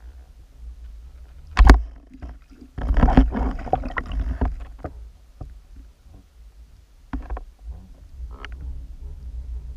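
Muffled underwater sound heard through a camera housing, over a low steady rumble. A sharp knock is followed about a second later by a couple of seconds of splashing and crackling as a fish strikes at the fly lures in a burst of bubbles, and two fainter knocks come later.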